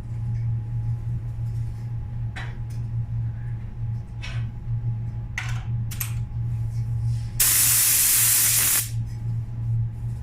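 Compressed-air paint spray gun hissing, with a few brief short hisses, then one louder burst lasting about a second and a half near the end. A steady low hum runs underneath.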